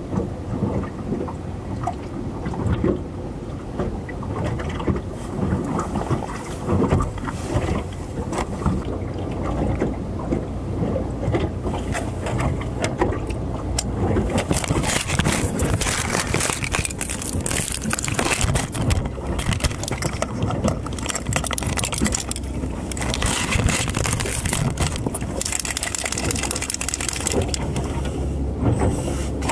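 Wind buffeting the microphone and small waves slapping against the hull of a small moored fishing boat, with frequent short knocks and scrapes that get busier about halfway through.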